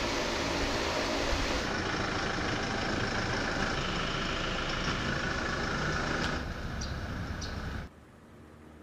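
A Toyota Innova 2.8 diesel MPV driving by: steady engine and tyre noise. The noise eases about six seconds in and cuts off sharply to a much quieter scene near the end.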